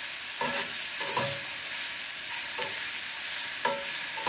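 Cubes of steak sizzling as they sear in a pot on a camp stove. A metal fork scrapes and knocks against the pot several times as the meat is turned.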